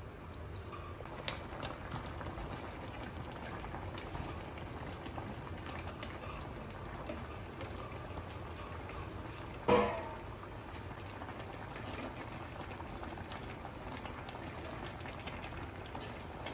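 Chicken and broth simmering in a wok, a steady bubbling with scattered light clicks. About ten seconds in comes a single loud, short clank with a brief ring.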